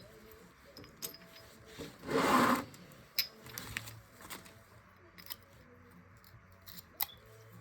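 Handling noise: a single short scraping rub a little after two seconds in, with a few scattered light clicks and taps between otherwise quiet stretches.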